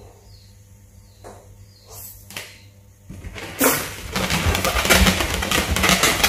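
Faint breaths as a latex balloon is blown up by mouth. From about three seconds in, a loud, dense crackling and rustling as the inflated balloon is handled close to the microphone.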